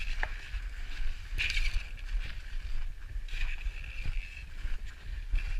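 Wind rumbling and buffeting on an action camera's microphone, swelling a couple of times, with a few small sharp clicks and knocks of ski gear.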